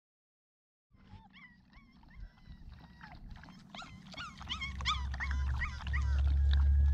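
Standard Schnauzer puppies whining and yipping, many short high-pitched cries overlapping and growing louder, starting about a second in. A low rumble builds underneath from about four seconds in.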